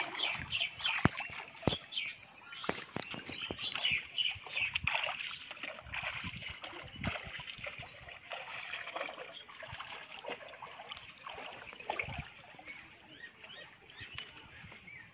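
Water splashing and sloshing as a person wades through a shallow pond, in irregular splashes that are busiest in the first half. Birds chirp in the background.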